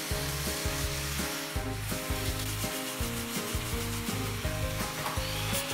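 Background music with steady, shifting notes, over the even hiss of an angle grinder's sanding disc working a wooden boat hull.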